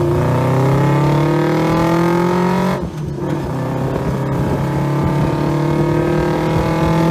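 A car engine accelerating hard, its pitch climbing steadily, dropping at a gear change about three seconds in, then climbing again.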